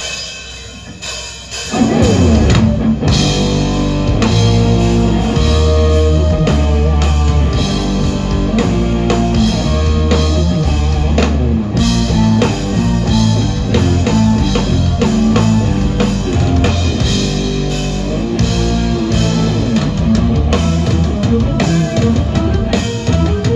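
Live rock band playing an instrumental intro on electric guitar, bass, keyboards and drum kit, quiet at first, with the full band coming in loud about two seconds in.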